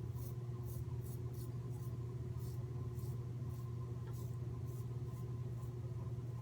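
Merkur 37c slant safety razor with a Derby blade scraping through lathered stubble in short, quick strokes, about two a second, over a steady low hum.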